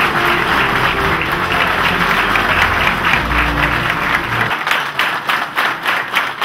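Audience applauding, many hands clapping at once. Background music plays beneath it and stops about four and a half seconds in, leaving the applause alone.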